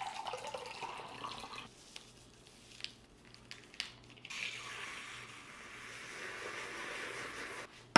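Water pouring from a pitcher into a glass, trailing off in the first second or two. Then, about four seconds in, a handheld frother whirs steadily in the water to stir in a powdered drink mix, and cuts off abruptly just before the end.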